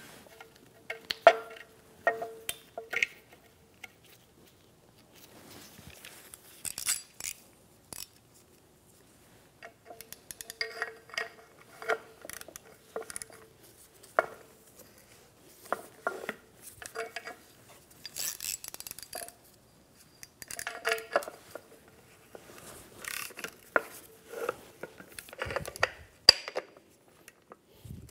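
Metal clinks and clatter as an oxygen sensor is threaded into a new stainless catalytic converter pipe and a sensor socket and wrench are fitted onto it; some knocks leave the pipe ringing briefly.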